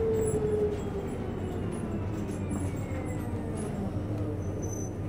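Inside a New Flyer Xcelsior XDE40 diesel-electric hybrid bus: steady low rumble of the running bus with a faint whine from the hybrid drive falling slowly in pitch as the bus slows for a stop.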